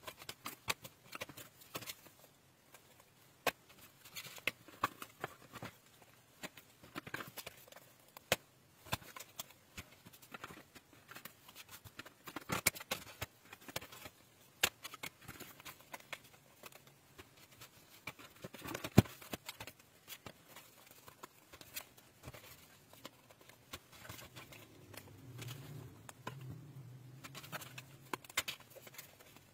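Thick cardboard puzzle cards being handled on a table: irregular small taps and clicks as pieces are picked up, fitted together and set down.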